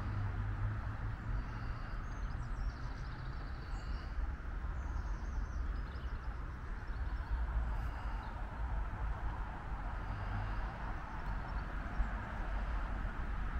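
Outdoor ambience: a steady low rumble and hiss, with small birds chirping faintly now and then.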